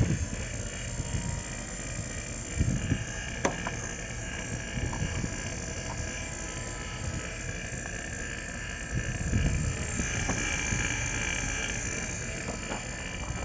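JB Eliminator vacuum pump running steadily, pulling a vacuum on an air-conditioner's refrigerant circuit through a manifold gauge set. A short click comes about three and a half seconds in.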